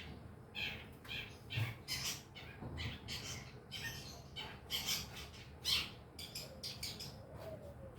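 Long-tailed shrike (cendet) chattering: a quick, uneven run of short, harsh, scratchy calls, several a second, as the bird practises its song.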